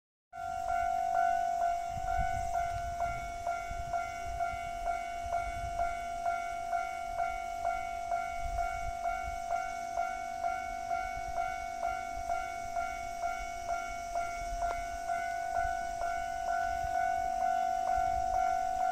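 Japanese level-crossing alarm ringing its repeated electronic 'kan-kan' tone, about two strokes a second, the signal that a train is approaching the crossing. A low rumble comes and goes underneath.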